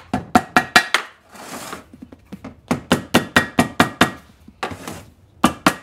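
Small ball-peen hammer lightly tapping a paper gasket sheet against the edge of a cast Maytag engine tank, so that the sharp edge cuts the gasket. The quick taps come several a second in runs, with short pauses between them.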